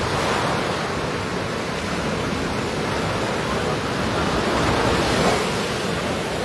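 Ocean surf breaking and washing up the shore: a steady rush of waves that swells slightly about five seconds in.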